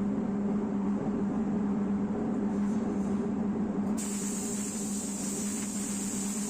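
Steady drone of a workshop machine running, with a low hum. A high, even hiss of air cuts in abruptly about four seconds in.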